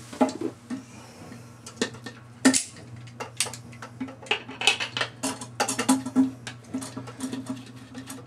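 Sharp metallic clicks, clinks and scrapes from pliers working on a toilet ballcock's float rod, coming thicker from about three seconds in. The float ball is being unscrewed from the old rod to be saved.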